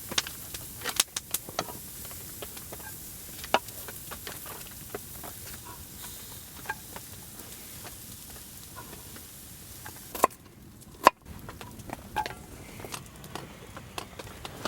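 Campfire crackling: irregular sharp pops and snaps over a low hiss, with a brief drop in level about ten seconds in.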